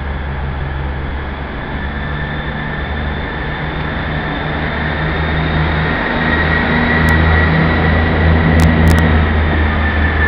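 Class 158 diesel multiple unit pulling out and passing close by. Its diesel engines run with a steady low drone that grows louder about six seconds in, over a thin high whine.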